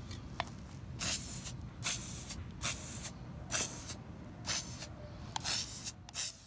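Aerosol can of Rust-Oleum Universal satin paint-and-primer spraying in short bursts: about seven hisses roughly a second apart, each about half a second long.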